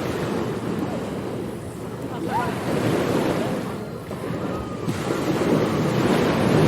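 Ocean surf washing onto a beach: a continuous rush of breaking waves that swells and eases over a few seconds, with wind.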